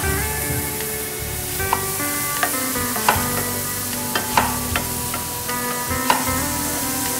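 Kitchen knife slicing through a tomato and knocking on a wooden cutting board, a sharp knock every second or so at an uneven pace, over soft background music.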